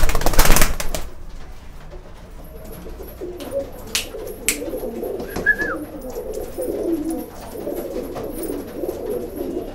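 Rakdher tumbler pigeons cooing repeatedly in low, wavering coos from about two seconds in. A loud rustling noise fills the first second, and a couple of sharp clicks come near the middle.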